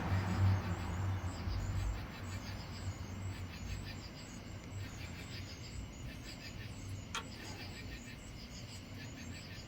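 Faint outdoor ambience: a low vehicle hum fading away over the first two seconds, then faint, evenly repeated high chirping with a single sharp click about seven seconds in.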